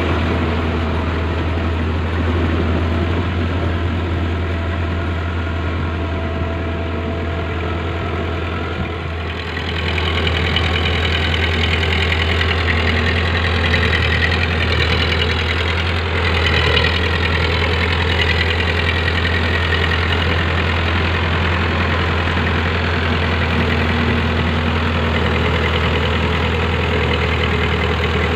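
Powertrac Euro 55 tractor's diesel engine running steadily under load, driving a rotavator through wet paddy mud. About nine seconds in it grows a little louder, and for several seconds after that a higher whine rises and falls over the engine.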